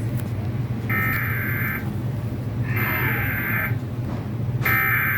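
Emergency Alert System SAME header: harsh, buzzy digital data bursts, each about a second long, three times roughly two seconds apart, over a steady low hum. These coded bursts carry the alert's event and area codes ahead of the attention tone.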